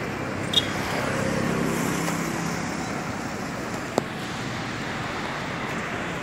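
Steady road traffic noise, with a motor vehicle's engine passing between about one and two and a half seconds in. There is a short click near the start and a sharp click about four seconds in.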